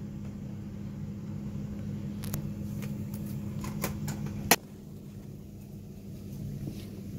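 A steady low mechanical hum with a few light clicks, then a sharp click about four and a half seconds in, after which the hum is quieter.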